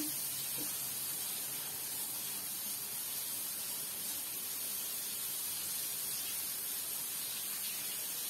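Carp frying in hot oil in a pan, a steady sizzle.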